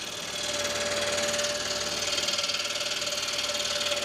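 Scroll saw running and cutting through a small block of aspen: a steady buzz with one constant tone running through it.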